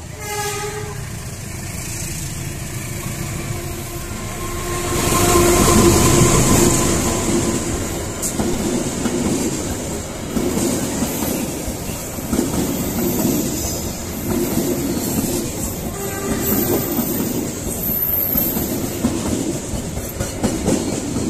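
A passenger train passing close at speed. The noise swells to its loudest about five seconds in as the front goes by, then the coaches' wheels clatter rhythmically over the rail joints as the carriages stream past.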